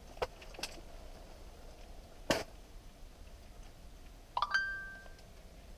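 Quiet room with a few small clicks and taps of fishing gear being handled, then about four and a half seconds in a short metallic clink that rings briefly.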